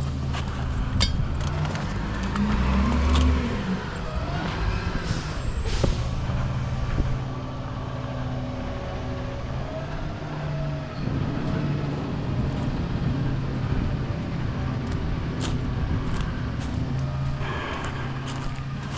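A motor vehicle's engine running, its low hum shifting in pitch now and then, with scattered clicks and knocks.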